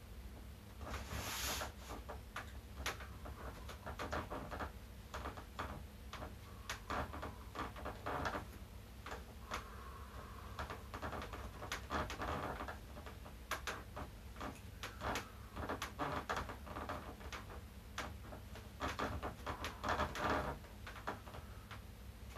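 Faint, irregular clicks and rustles from a person moving through a bridge exercise on a foam roller, lifting and lowering arms and legs, over a low steady room hum.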